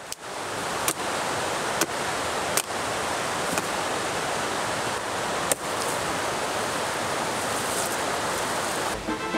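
Small axe striking the branches of a tree: about six sharp chops at uneven intervals, the last one more than halfway through, over a steady rushing noise.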